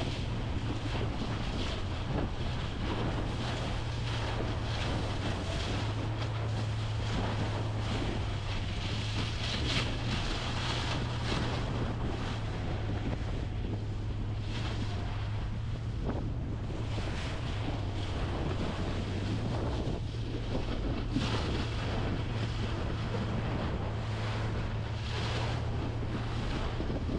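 Boat engine running with a steady low hum while wind buffets the microphone in gusts and waves wash around the hull.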